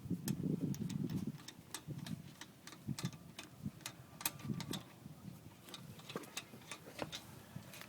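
Irregular sharp metallic clicks and clinks of a lug wrench and wheel-lock key being worked on the wheel's lug nuts, with a rougher scraping sound in the first second or so.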